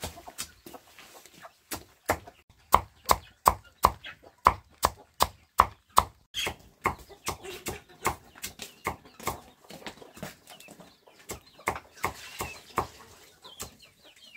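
Papaya being chopped with a knife on a cutting board in fast, steady strokes, about three chops a second, loudest in the first half.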